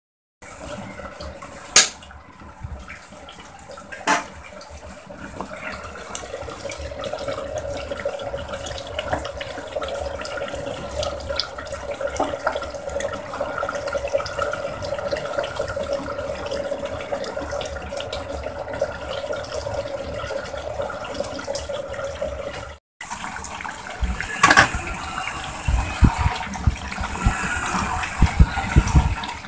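Food cooking in marble-coated pots on a gas stove, a steady watery bubbling hiss with two sharp knocks near the start. After a cut near the end, a spoon stirs chicken and potato curry in a marble-coated pot, with quick clicks and scrapes.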